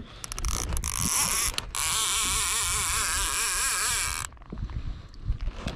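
Fishing reel drag buzzing as a big hooked fish runs and pulls line off, its pitch wavering. It starts in short spurts, runs steadily for a couple of seconds, and stops about four seconds in.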